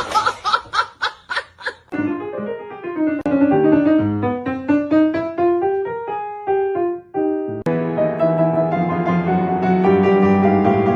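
Piano music: a quick run of short struck notes, then a stepping melody of single notes, then fuller sustained chords from about three-quarters of the way through.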